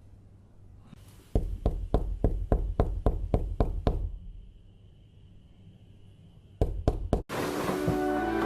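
A rapid run of about ten knocks, roughly four a second, then three quick knocks a few seconds later. Loud choral music then starts near the end.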